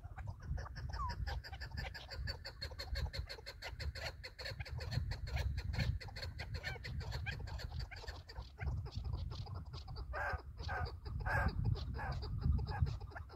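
Chukar partridge calling: a long, rapid run of clucking chuk notes, with a few louder, lower calls about ten seconds in. Wind rumbles on the microphone.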